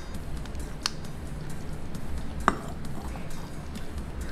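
Ceramic fondue bowl set down onto its ceramic candle stand: a light click about a second in, then a sharper clink with a brief ring about two and a half seconds in, over a low steady hum.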